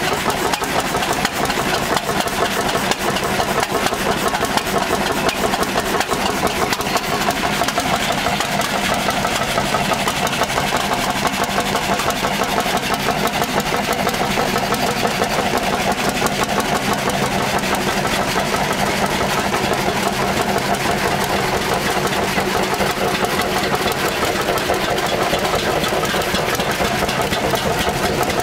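Vintage stationary hot-bulb engines running steadily, a continuous run of even, repeating knocking beats.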